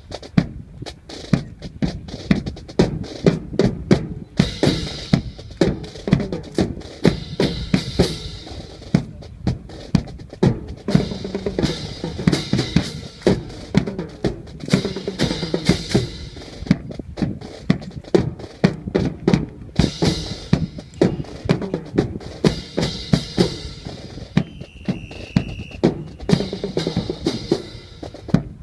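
Snare and bass drums playing a steady, rhythmic drum cadence with sharp rim-like strikes, as for a military drill display.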